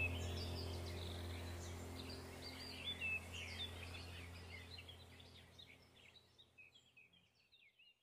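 Background track of small birds chirping over a low steady hum, fading out gradually to silence near the end.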